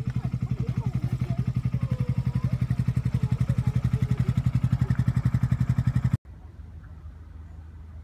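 Narrowboat diesel engine chugging at low revs, a steady, rapid thumping of about ten beats a second. It stops abruptly about six seconds in, leaving a faint low hum.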